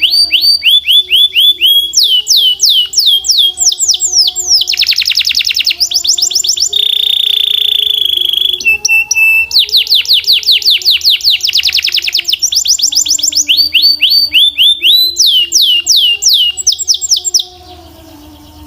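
Belgian canary singing loudly in fast rolling trills of repeated downward-sliding whistled notes, with a long held buzzy note about halfway through. The song breaks off suddenly near the end.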